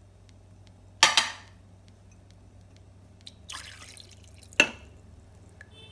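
Milk and oil being poured into a stainless-steel mixer-grinder jar: a sharp clink about a second in, a short splashing pour past the middle, then another sharp clink just after it. A faint steady hum runs underneath.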